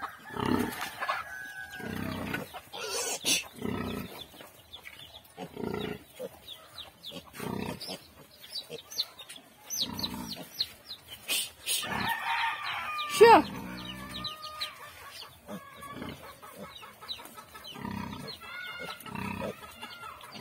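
Farmyard animal sounds: chickens clucking and a rooster crowing, with short low grunts repeating every couple of seconds from the nursing sow. The loudest call comes about two-thirds of the way through.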